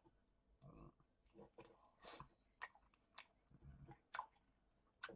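Faint chewing and mouth sounds of a man eating a mouthful of rice and meat, with a few soft clicks scattered through.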